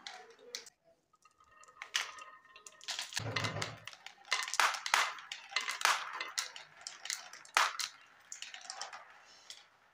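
Marbles rolling and clattering down a marble run of plastic brick chutes, giving a quick, uneven string of sharp clicks and knocks. A brief low rumble comes about three seconds in.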